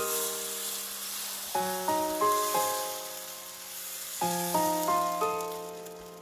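Background keyboard music playing slow, held chords, with new chords coming in about a second and a half in and again about four seconds in. Underneath, a steady high sizzle of dosa batter frying as it is spread on a hot pan.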